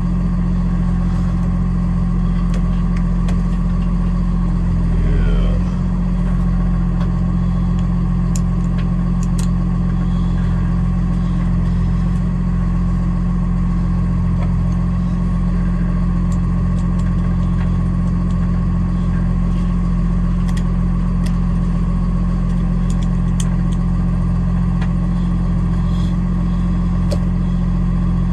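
Box truck's engine idling, a steady low drone heard from inside the cab, with a few faint clicks.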